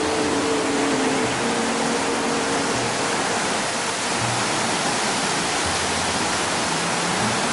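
Mountain stream rushing and cascading over boulders, a loud, steady rush of water.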